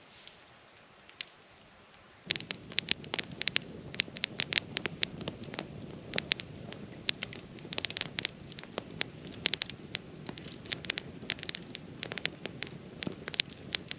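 Small wood campfire of dead branches crackling: many sharp, irregular pops over a steady hiss. It comes in abruptly about two seconds in, after a near-quiet start.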